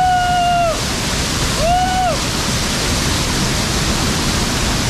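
Loud steady rush of a waterfall pouring down onto a man standing beneath it. Over it he lets out held yells at the icy water: a long one that breaks off just under a second in, and a shorter one about two seconds in.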